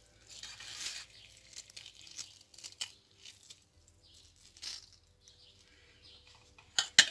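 A hand squeezing half a lemon over chopped chicken, onion and herbs in a steel bowl, then handling the mixture: faint, scattered soft rustles, with one sharp click near the end.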